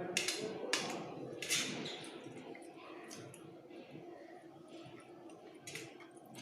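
Someone chewing a mouthful of Bengali fried rice (bhaat bhaja), with several short, wet mouth smacks, the loudest two within the first two seconds.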